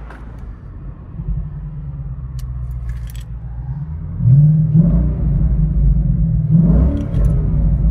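2017 Ford Mustang GT's 5.0-litre V8 through an X-Force Varex cat-back exhaust with the resonators removed, heard from inside the cabin. It idles, then is revved twice, about four seconds in and again a couple of seconds later.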